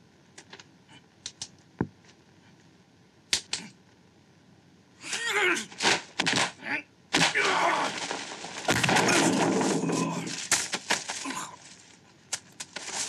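Martial-arts film fight sound effects: a few sharp snaps and hits, then about five seconds in a loud, rapid flurry of punch and kick impacts mixed with the fighters' shouts.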